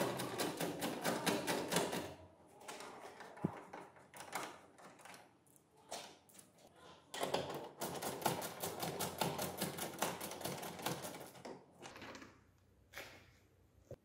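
Ratcheting screwdriver clicking rapidly and evenly as it turns out headlight mounting screws. There is one run of clicks at the start and another of about four seconds past the middle, with a few scattered knocks and one sharp knock in between.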